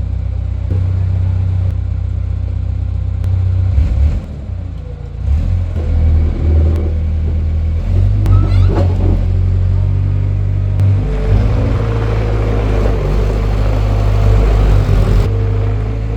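Caterpillar 236B skid steer's diesel engine running, dipping briefly and then picking up speed partway through. A steady whine joins in during the second half.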